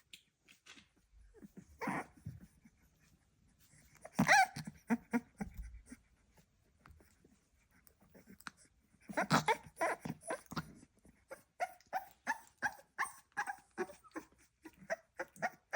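Staffordshire bull terrier puppy vocalising: a few separate barks, then a steady run of short squeaky noises at roughly two to three a second through the last part.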